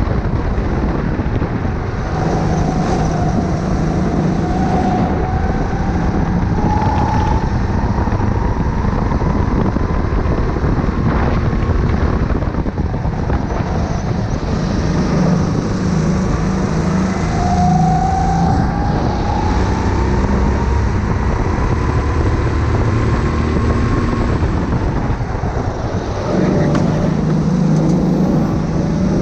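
Go-kart engine heard from the driver's seat at racing speed, its pitch rising slowly as it accelerates and falling away as it lifts off, several times over. About three seconds from the end it drops briefly, then picks up again.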